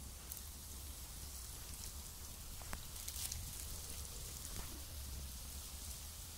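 Jalebi batter deep-frying in hot oil in a kadhai: a steady sizzle with small crackles and the odd sharper pop.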